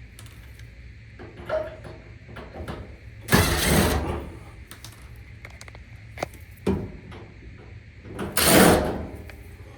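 Handling noise from taking apart a clothes dryer: scattered clicks, and two louder scraping sounds about three and a half and eight and a half seconds in as screws and panels are worked loose.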